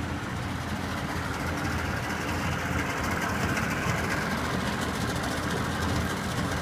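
Nissan 40 HP three-cylinder two-stroke outboard motor idling steadily.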